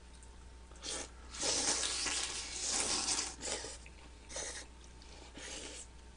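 Slurping of glass noodles and broth from a beef bulgogi hot pot: a short slurp about a second in, a long one lasting about two seconds, then two shorter slurps.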